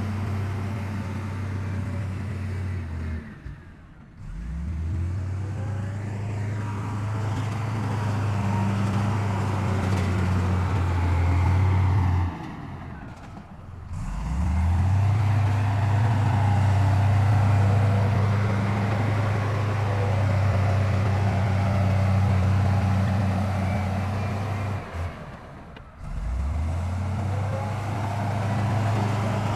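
Heavy diesel engines of earthmoving machinery running with a steady low hum. The sound drops away three times and builds back up each time with a rising pitch.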